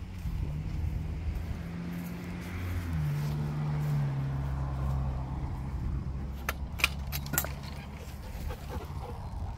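A vehicle engine running steadily at low speed, its pitch dropping about three seconds in, with a few sharp clicks about seven seconds in.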